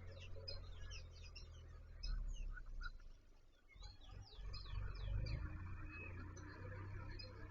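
Small birds chirping: quick, high, falling notes in flurries at the start and again past the middle, over a steady low rumble that swells briefly twice.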